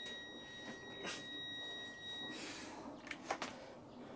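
Digital torque meter on a breaker bar giving a steady high electronic beep while a cylinder-head bolt is pulled tight. This is the alert such a meter sounds once its set torque is reached. The beep cuts off about two seconds in, followed by a few sharp metallic clicks about a second later.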